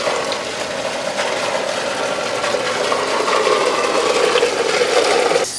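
Steady rushing hum of a fountain's pump room, with pumps running and water moving through the PVC plumbing. It grows a little louder toward the end.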